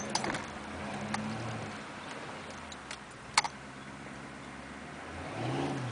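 Diesel engine of a 1991 GMC Suburban heard from inside the cab at a slow trail crawl, a low drone with a few sharp clicks and knocks in the cab, the loudest about three and a half seconds in. Near the end the engine note briefly rises and falls.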